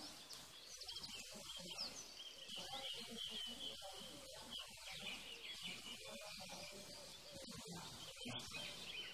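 Faint outdoor ambience of small birds chirping over and over, with a low murmur beneath.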